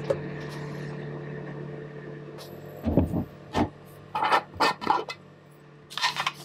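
Metal screw lid being twisted open on a glass jar: a knock, then a run of short clicks and scrapes, over a steady low hum.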